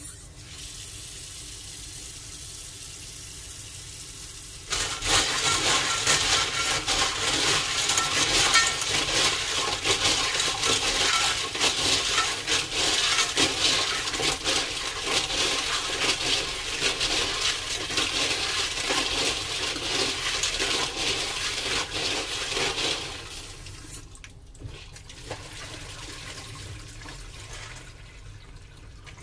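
Water from a tap running into a sink. It starts as a moderate flow and is turned up to a strong splashing stream about five seconds in. Near the end it eases back to a quieter trickle.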